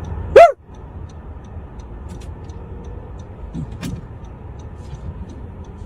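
Steady low rumble of a running vehicle, with faint regular ticking. A single short, loud, high call sounds about half a second in.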